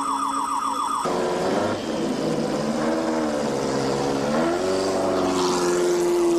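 Formula One car engine running at high revs, its pitch dipping and rising with speed and gear changes, then holding a high note near the end. Until about a second in, a repeating electronic chirp plays.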